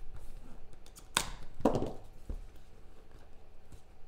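Hands opening a small cardboard trading-card box and handling its clear plastic card case: two sharp clicks a little over a second in, about half a second apart, then a softer tap.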